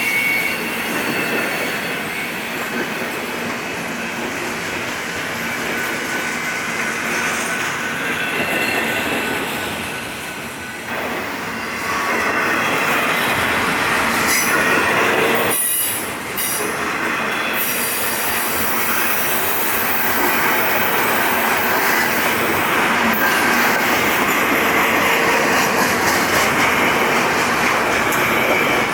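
Cars of a CN double-stack container train rolling past, the wheels squealing in thin high tones over a steady rattle and clickety-clack on the rails.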